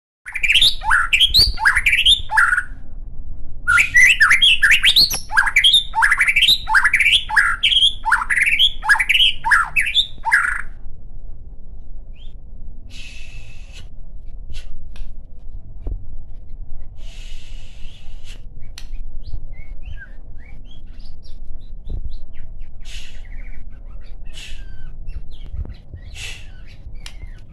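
A murai (Copsychus songbird, magpie-robin or white-rumped shama) singing: a fast series of rising notes, about two a second, with a short break near the start, for roughly the first ten seconds. After that it gives only scattered, softer chirps and short harsh calls.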